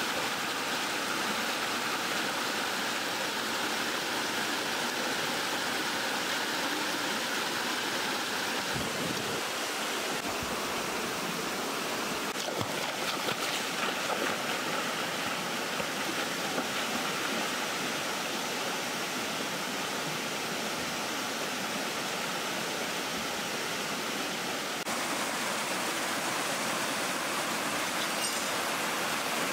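Rushing water of a rocky stream and small waterfall cascading over stone, a steady rush.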